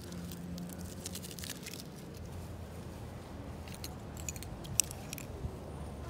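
Faint light clicks and rattles in two short clusters, the first about a second in and the second near the end, over a low steady background hum.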